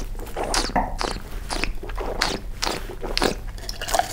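A wine taster slurping white wine from a glass, drawing air through it in the mouth, in a quick run of short wet sucking strokes, about three or four a second.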